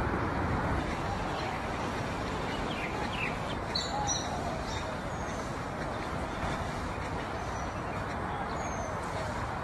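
Steady outdoor background noise with a few short, high bird chirps, some about three to four seconds in and another near the end.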